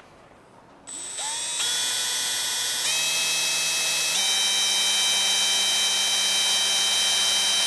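Electric drill motor starting about a second in with a rising whine, stepping up in speed twice, then running steady at high speed while drilling a 3/32-inch hole in a power strip's metal housing.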